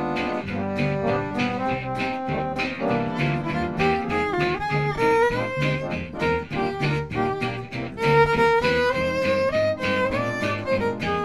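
Gypsy-jazz band playing: a violin carries the melody with slides between notes, over steady strummed rhythm from acoustic guitars and an upright bass.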